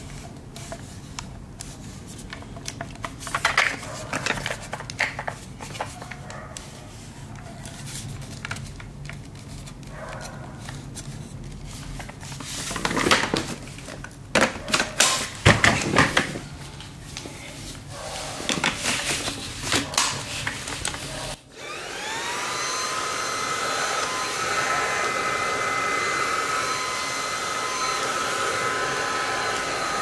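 Clicks and knocks of the vacuum's parts being handled, in bursts, over a low hum. About two-thirds of the way through, the Xiaomi G11 cordless stick vacuum's motor starts, its whine rising over about a second and then holding steady and high.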